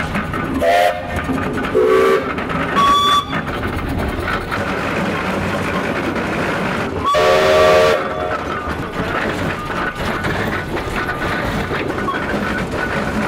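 1906 Advance steam traction engine running steadily on the road while its steam whistles are blown: three short toots in the first three seconds, a middle, a low and then a high note, and about seven seconds in a longer blast of about a second that sounds high and lower notes together.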